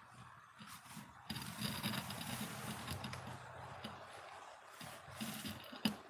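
Paint roller on an extension pole rolling thick wet waterproofing coating onto a plywood wall, a steady wet rubbing that starts about a second in. A single sharp click comes just before the end.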